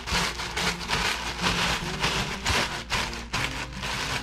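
Barbecue potato chips being crushed by hand inside a plastic zip bag: crunching and crinkling in quick irregular bursts as the hands press and squeeze the bag.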